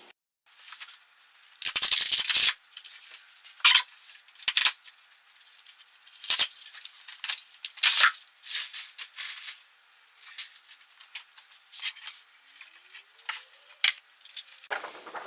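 Cardboard and paper packing of a flat-pack furniture box being handled and pulled out: irregular rustling and crinkling, with a longer, louder rustle about two seconds in.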